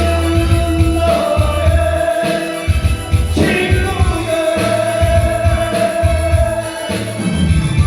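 Music with a singer holding long notes over a steady, pulsing bass beat.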